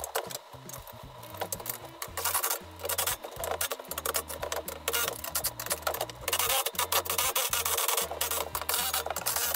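Irregular rubbing and scraping of gaming chair parts being handled and fitted during assembly, with background music underneath.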